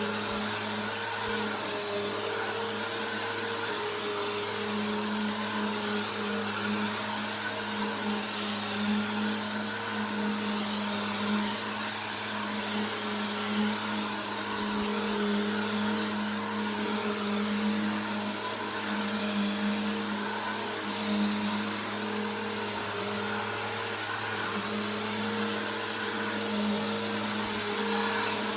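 Bissell PowerForce Helix upright vacuum cleaner running: a steady motor hum over a rush of air.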